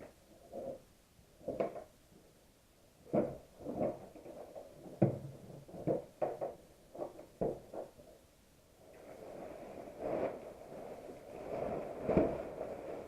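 A series of irregular short knocks and thumps. From about nine seconds in, a steady noise sets in under further knocks.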